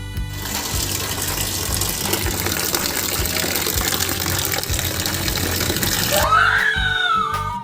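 A steady rushing noise, like running water, lasting about six seconds. It then gives way to a tone that glides up and then slowly down.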